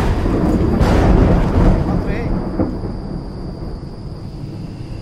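Thunder-like sound effect: a loud rumbling crash that surges about a second in, then slowly dies away.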